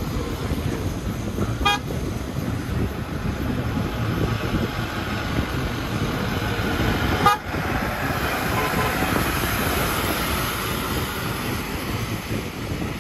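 Wind rushing over the microphone of a moving motorbike, with road and vehicle noise, and a short horn toot about two seconds in. A sharp click about seven seconds in.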